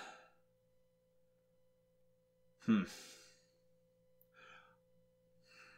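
A man sighs about three seconds in, a short voiced sound trailing off into a breathy exhale, and breathes out faintly again a little later. A faint steady hum runs underneath.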